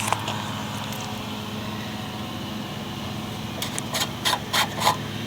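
Steady low background hum, with a quick run of about five sharp clicks and knocks near the end, typical of hands handling parts of a push mower.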